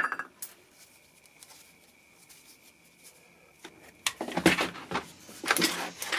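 A click, a few quiet seconds, then from about four seconds in a run of knocks and rattles as a chainsaw's plastic housing is handled, picked up by its handle and turned on a workbench.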